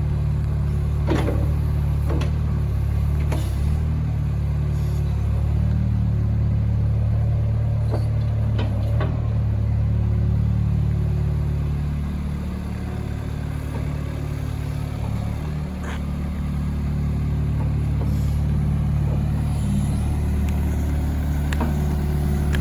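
Diesel engine of a Hyundai Robex 55W-9A wheeled excavator running steadily, with a handful of sharp metallic clanks scattered through; the engine note eases off slightly about halfway through, then comes back up.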